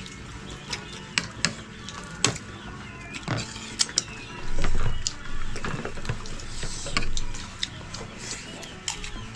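Scattered clinks and knocks of dishes and utensils being handled at a meal, with a louder low thump about four and a half seconds in.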